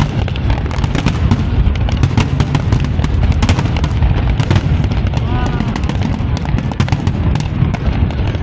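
Fireworks display: a dense run of sharp bangs and crackles over a continuous low rumble, with indistinct voices of onlookers beneath.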